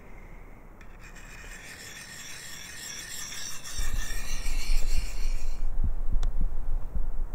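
A steady high-pitched rasping hiss lasting about five seconds, with wind buffeting the microphone from about halfway in, and a single sharp click near the end.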